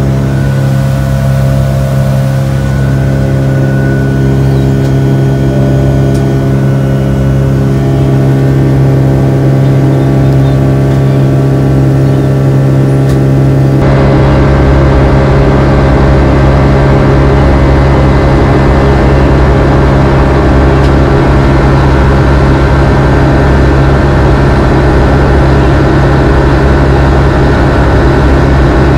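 Boeing 757-200 cabin noise in flight: the steady drone of the jet engines and rushing air, with a strong low hum. About halfway through, the sound changes abruptly, becoming a little louder and rougher.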